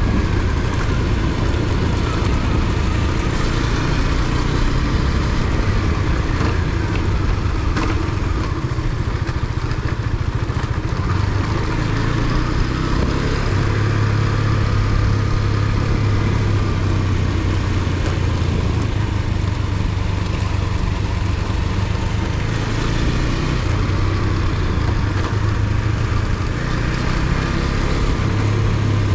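Husqvarna Svartpilen 250's single-cylinder engine running steadily while riding, its pitch shifting a little now and then, over a steady rush of wind and road noise.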